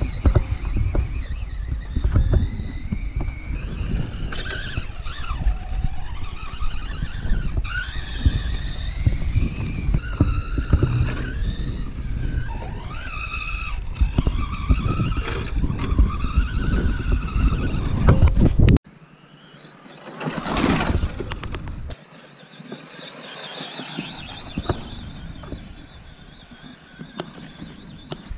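Electric motor of a Team Associated Pro2 RC short-course truck whining as it drives on sand, its pitch rising and falling with the throttle, over heavy wind rumble on the microphone. About two-thirds of the way through the wind rumble cuts off suddenly. A brief louder swell of the motor follows, and then the whine is fainter.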